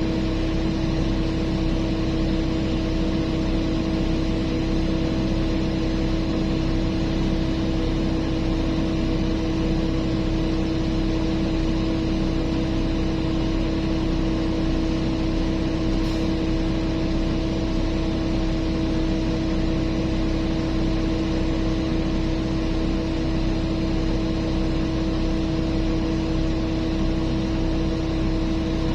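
Heavy mining machinery's large diesel engine running steadily at constant speed, a continuous hum that neither rises nor falls.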